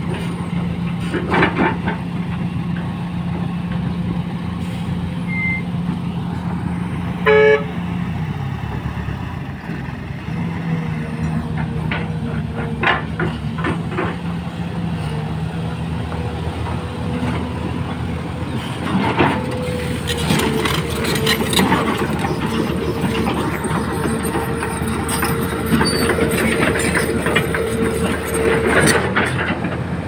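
XCMG XE215C excavator's diesel engine running steadily as the machine works, its hum stepping down in pitch about eight seconds in. A short horn toot sounds just before that. In the second half the running gets louder, with a steady whine and scattered knocks.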